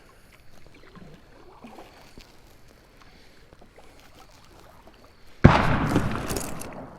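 One loud explosion about five and a half seconds in: a sudden blast that dies away over about a second and a half as it echoes.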